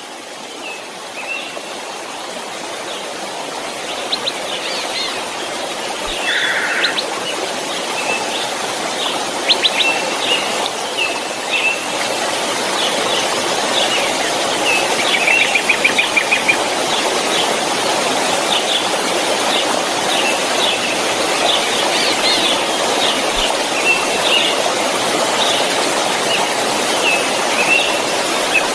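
Waterfall rushing steadily, fading in over the first few seconds, with birds chirping on and off over it.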